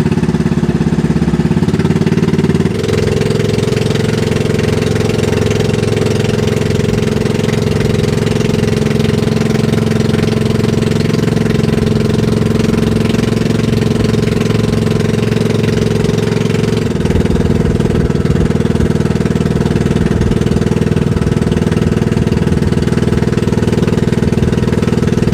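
Small fishing boat's engine running steadily, its speed shifting in two steps, about three seconds in and again about two-thirds of the way through.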